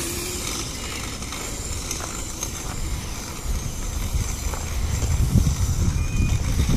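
Razor MX500 electric dirt bike running across dirt, a low rumble of motor and tyres that grows louder in the last couple of seconds as it comes closer.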